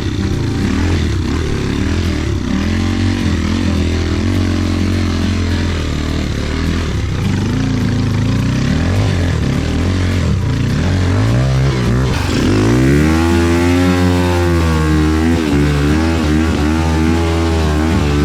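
Trail motorcycle engine running and revving up and down as the bike is ridden, with revs dipping and then climbing sharply about twelve seconds in. The engine has just been restarted after its mud-clogged air filter box was cleared.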